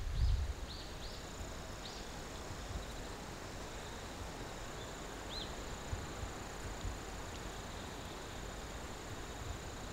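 Rural outdoor ambience with a steady high insect drone, cricket-like. A few short high chirps sound in the first two seconds and once more about five seconds in, over a soft hiss, with a low wind rumble on the microphone at the very start.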